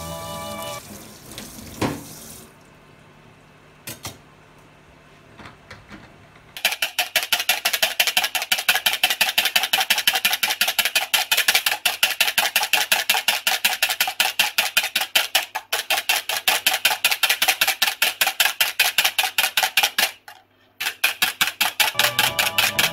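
Wire balloon whisk beating egg white in a plastic bowl: fast, regular strokes that start a few seconds in and stop briefly near the end. Background music at the very start and again as the whisking ends.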